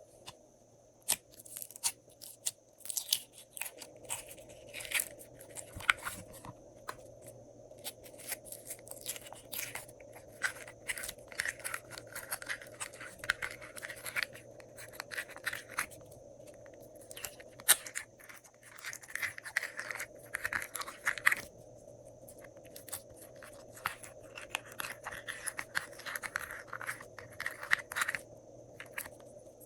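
Glossy slime being worked by hand, with runs of rapid sticky clicks and crackles broken by short pauses.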